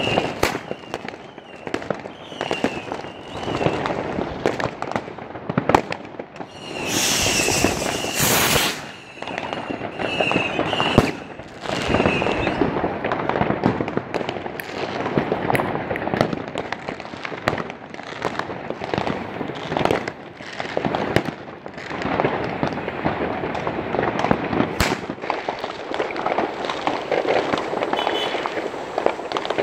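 Fireworks and firecrackers going off: a dense run of crackles, pops and bangs, with a loud hissing rush about seven seconds in that lasts a second and a half.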